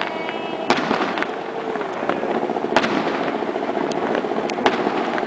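Aerial firework shells bursting overhead: several sharp bangs at irregular intervals over a steady background rumble.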